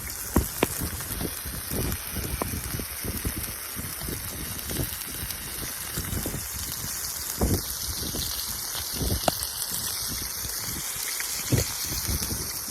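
Burgers sizzling on a grate over a wood campfire: a steady frying hiss with scattered sharp pops and crackles.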